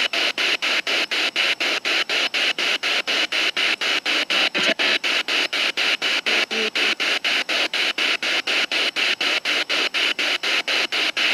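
Radio-sweep spirit box (ghost box) scanning: hissing static cut into short even bursts about four to five times a second, with a brief lower sound about four and a half seconds in. The sweep is used to catch spirit voices, and the investigator takes what comes through as her son's voice.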